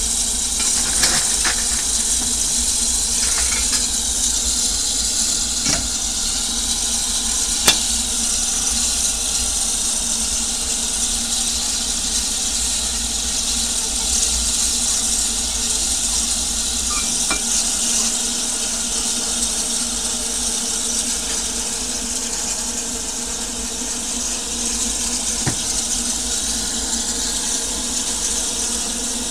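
Narrow-gauge steam locomotive standing with steam hissing steadily from the engine. A few sharp knocks from the fireman's shovel and firebox door break through, the loudest about eight seconds in.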